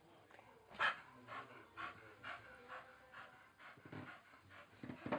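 Staffordshire bull terrier panting in quick, even breaths, about two a second, with one louder breath about a second in.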